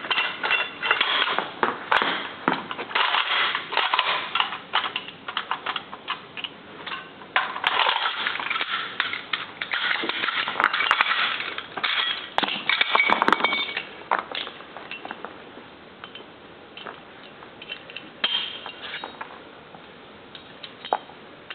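Metal clacks, clicks and rattles of machine-gun parts being handled and worked, dense through the first two-thirds, then sparser and quieter.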